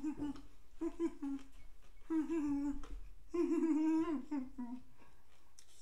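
A man's closed-mouth groans and hums of disgust, about five in a row, some drawn out, while he chews a June bug.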